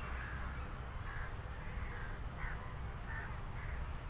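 Crows cawing: a string of short, repeated calls, over a steady low rumble.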